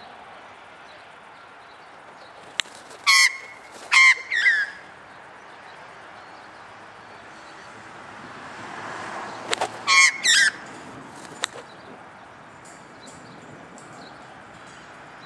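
Australian magpie calling in two short bursts of harsh, stacked calls, about three seconds in and about ten seconds in. Single sharp clicks come just before and around the bursts: the magpie's bill snaps as it swoops. A steady hiss runs underneath.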